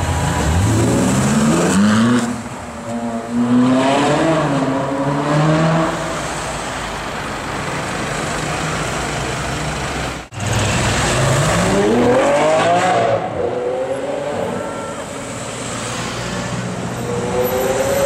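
Ferrari 458 Spider's V8 engine accelerating hard, its note climbing in pitch and dropping back at gear changes. After a sudden cut about ten seconds in, another car engine accelerating through the gears with street traffic behind it.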